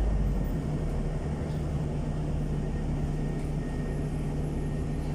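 Interior of a NefAZ 5299.40 city bus under way: steady engine and road noise, with a low steady drone coming in about half a second in.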